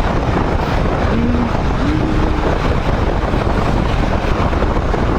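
Wind buffeting the microphone of a motorcycle rider at cruising speed: a steady, loud rush of noise that covers the bike's engine.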